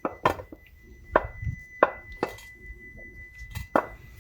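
Irregular sharp metallic clinks and knocks, about six in four seconds, as metal driveline parts are handled or tapped. A faint steady high tone runs underneath.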